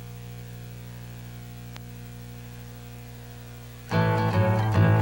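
Steady electrical mains hum with one faint click, then about four seconds in a plucked-guitar theme tune starts abruptly and loud.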